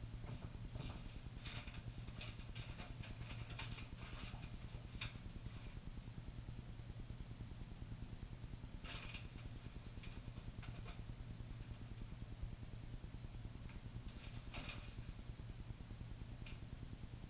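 A steady low hum throughout, with scattered footsteps and the rustling and crinkling of a paper bag of powdered setting-type joint compound being handled, busiest in the first few seconds and again twice later.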